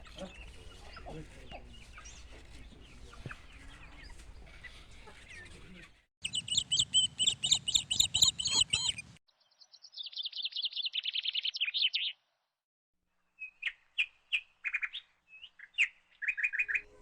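Songbirds singing. Faint outdoor chirping for the first few seconds, then, about six seconds in, loud, clear bird song: a run of rapid repeated high calls, then a quick trill falling in pitch, then short calls, separated by abrupt gaps of dead silence.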